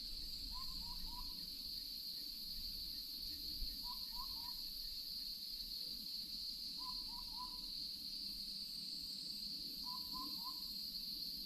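An animal calling in quick three-note groups, repeated about every three seconds, over a steady high-pitched insect hum.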